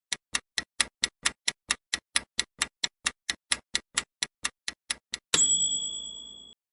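Quiz countdown timer sound effect ticking steadily about four times a second, ending about five seconds in with a bright ringing chime that fades out: the answer time has run out.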